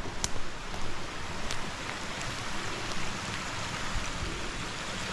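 Steady hiss of water in wet woods, with a few sharp ticks of single drops landing.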